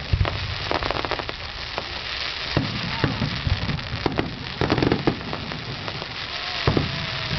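Fireworks display: irregular sharp bangs of bursting shells, clustered about a second in and again just before five seconds, over a continuous crackle.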